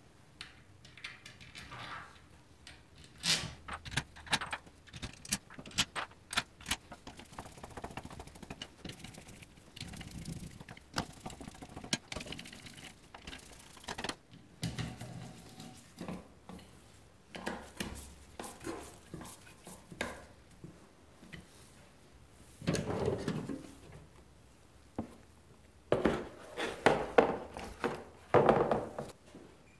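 Small metal clicks and clinks of a hand tool and parts being worked on a motorcycle engine's aluminium crankcase, densest in the first few seconds. Near the end, two louder spells of clatter as a torque wrench is handled in and lifted out of its hard plastic case.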